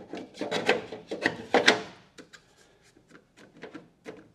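Black PLA 3D-printed tool holders scraping and rubbing against the steel floor of a tool chest drawer as they are pushed into place, in a quick series of rough strokes. These fade into a few light taps over the last couple of seconds.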